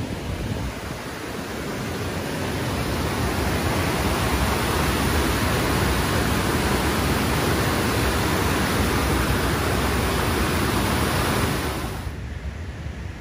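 Rushing water of the Las Vegas Wash running in foamy rapids: a steady rush that swells over the first few seconds and cuts off abruptly near the end.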